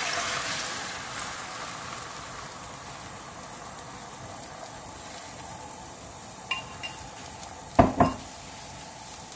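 Beaten egg poured into a hot olive-oiled nonstick frying pan, sizzling loudly as it hits and settling within a couple of seconds into a steady, quieter sizzle as the thin egg sheet sets. A light click and then a louder knock come near the end.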